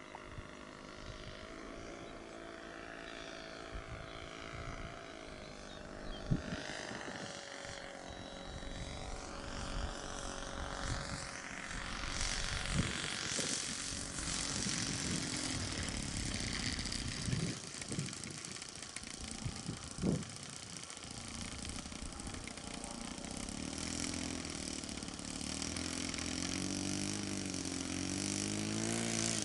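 Saito four-stroke engine of a radio-controlled model Miles Magister running as the plane descends, lands and rolls out on grass. It grows louder and its pitch rises and falls near the end, with a few short thumps along the way.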